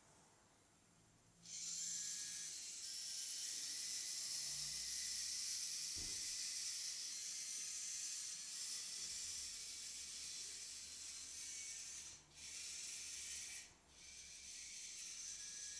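Small robot's drive servos whirring as it drives: a steady high whir that starts abruptly about a second and a half in and drops out briefly twice near the end as the robot stops and starts.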